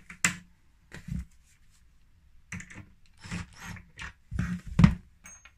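A cordless drill-driver driving screws into a wardrobe's frame panels, heard as several short clicky bursts and knocks.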